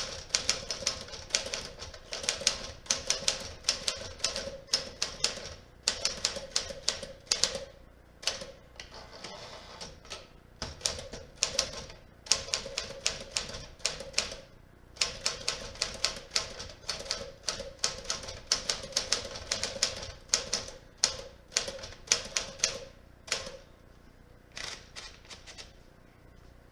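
Manual typing on a 1956 Smith Corona Clipper portable typewriter: rapid runs of sharp keystroke clacks, broken by short pauses, thinning to a few scattered strokes near the end. The machine is typing smoothly after a full service.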